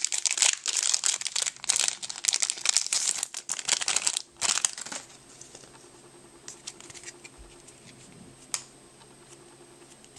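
Foil trading-card booster pack torn open and crinkled by hand, a dense crackle for about the first five seconds. Then it goes much quieter, with a few light clicks as the cards are handled.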